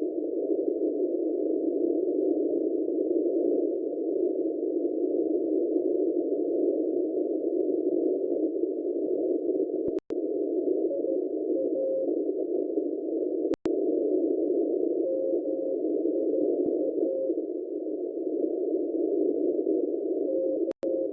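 Shortwave receiver on 7999 kHz in CW mode: steady static hiss through a narrow filter, with a faint Morse code tone keyed in short runs of dots and dashes from about halfway through. This is an unidentified Morse signal. The audio cuts out for a split second three times.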